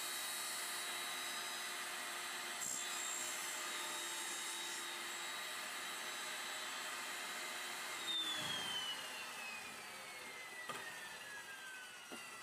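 Table saw running steadily with its motor whine, with a few light knocks. About eight seconds in it is switched off, and the whine falls in pitch as the blade spins down.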